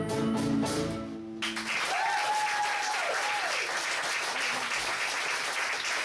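The final held chord of a song from piano and upright bass, ending abruptly about a second and a half in, followed at once by an audience applauding. Shortly after the applause starts, one long call rises out of the crowd, holds and falls away.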